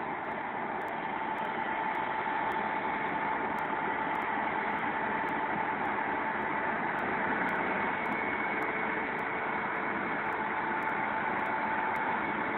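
Diesel engine of heavy farm machinery running steadily, with a steady whine over a noisy rumble and no breaks or revving.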